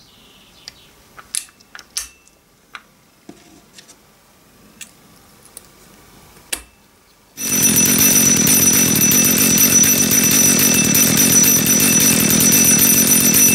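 A few faint clicks and taps, then about seven seconds in a Dolmar PS-32 chainsaw's two-stroke engine cuts in, idling with a steady high metallic ringing over it. The ringing comes from the clutch, which the owner traces to a worn washer dancing against the clutch drum at idle.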